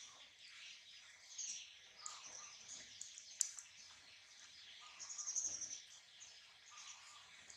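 Small birds chirping and twittering faintly in the background, with a quick run of high chirps about five seconds in.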